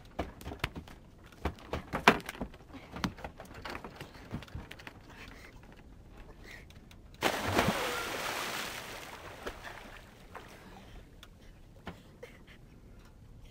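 Scattered knocks and handling clatter on a sailboat deck, then a sudden rush of noise about seven seconds in that fades away over a few seconds.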